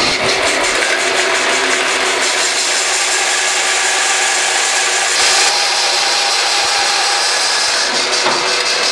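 Bandsaw running and ripping through a round, bark-covered tree limb, a steady hiss of the blade cutting wood over a faint motor hum. The cutting sound turns brighter and hissier about halfway through.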